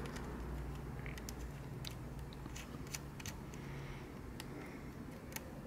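Faint, scattered small clicks and taps of fingers handling a small bolt and nut while fitting them through a Brompton's rear mudguard stays and anchor plate, over a low steady hum.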